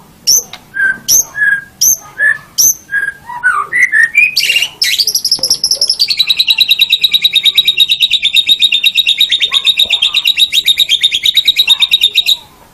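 White-rumped shama (murai batu) singing: a run of separate, repeated whistled notes, then a long, fast, even trill that stops suddenly near the end.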